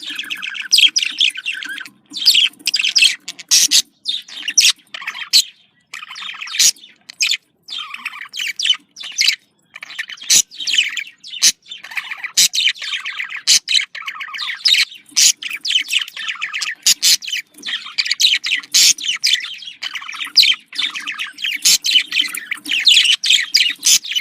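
Budgerigar chattering and warbling: a continuous run of quick chirps, clicks and trills, broken by a few brief pauses.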